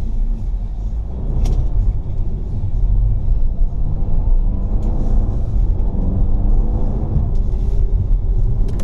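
Mercedes CLA 250 4Matic driving through snow: a steady low rumble from the car, with the engine's pitch rising and falling a few times in the second half as it is revved.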